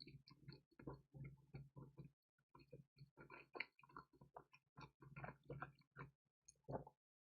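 Close-miked chewing of a pizza topped with dried radish greens and bulgogi: a run of irregular, soft mouth sounds, several a second, with short breaks between bites.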